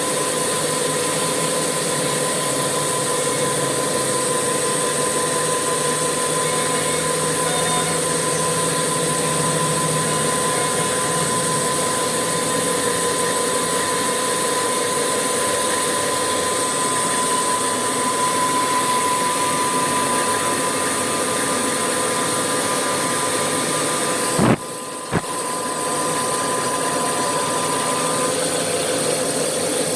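Machinery running steadily, a constant hiss with a steady whine; it drops out briefly about five seconds before the end.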